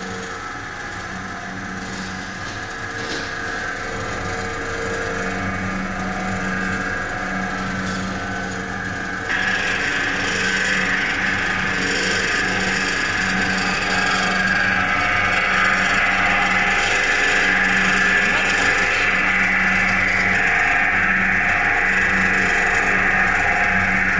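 Single-screw snack pellet extruder running: a steady mechanical hum with a higher whine over it. It gets abruptly louder about nine seconds in, then holds steady.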